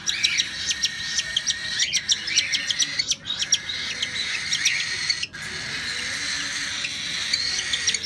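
Fallow cockatiels chirping in quick, repeated high calls, most tightly packed in the first half.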